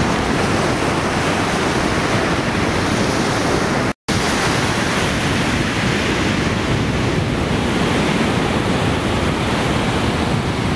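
Ocean surf washing onto a sandy beach, a steady loud roar of breaking waves with wind buffeting the microphone. The sound cuts out for an instant about four seconds in.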